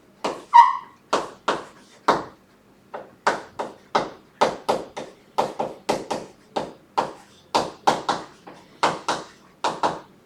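Writing on a board: a run of short, sharp taps and scratches, about two or three a second, with a brief pitched squeak about half a second in.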